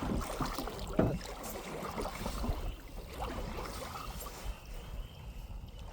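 Canoe paddle strokes in pond water, irregular and soft, with a louder stroke about a second in, over a low wind rumble on the microphone.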